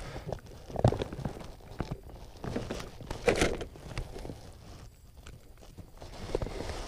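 Scattered light knocks and rustles of hands handling fish and tackle on a plastic fishing kayak, with a few sharper taps in the first half.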